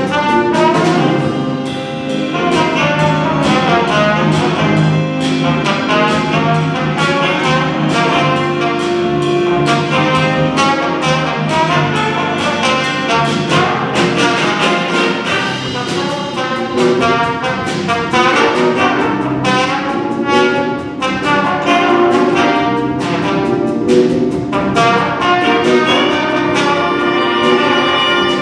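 Jazz big band playing, led by a brass section of trumpets and trombones, with drums keeping a steady beat underneath.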